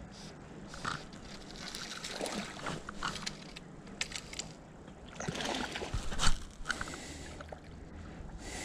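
Creek water sloshing and splashing as a hooked rainbow trout is played on a fly rod, with irregular clicks and scrapes of rod and line. The loudest splash comes about six seconds in.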